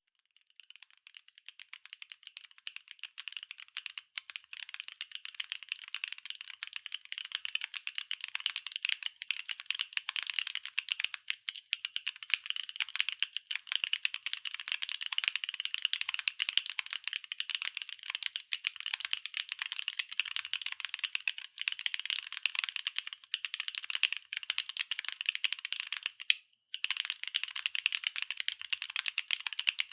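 Fast, continuous typing on a NEO70 gasket-mounted mechanical keyboard with BSUN Tomcat linear switches, an aluminium plate and PBT double-shot keycaps: a dense run of keystroke clacks, softer for the first few seconds, with one brief pause near the end.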